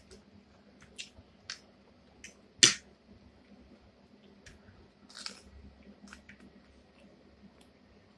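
Quiet eating sounds close to the microphone: a scatter of short mouth clicks and smacks, the loudest a sharp click about two and a half seconds in, with a brief crunchy rustle around five seconds.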